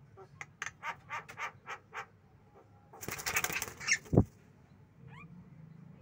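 Caged Javan mynas: a run of short, sharp call notes, about four a second, then a brief flurry of wing-flapping about three seconds in. Near the end of the flapping comes a loud low thud.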